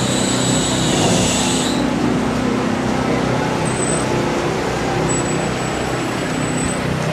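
A vehicle engine running steadily close by, with a steady low hum; a higher hiss drops away about two seconds in.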